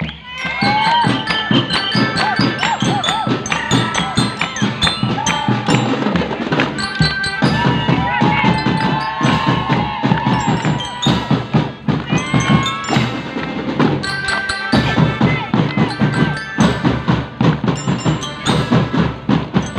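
Marching drum band playing: drums beat a fast rhythm under a melody played on mallet bells.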